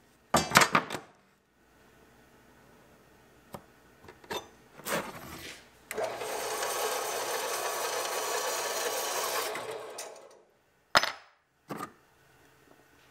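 Workbench handling sounds: a brief burst of scraping strokes, a few knocks, about four seconds of steady rushing noise, then two sharp knocks as a brass bar and a metal plate are set down on the wooden bench.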